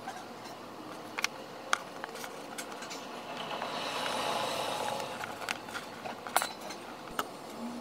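Fingers handling and twisting the stripped ends of thin two-core wire: scattered small clicks with a soft rubbing, scraping noise that swells for a second or two around the middle.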